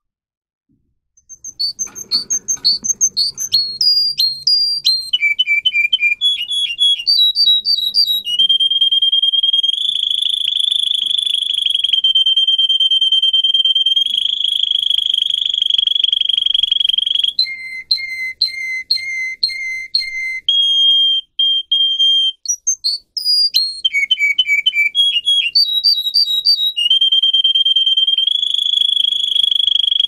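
Domestic canary singing: quick high chirps, then long even trills held at one pitch, broken by runs of lower repeated notes. There is a short pause about two-thirds of the way through, after which the song picks up again.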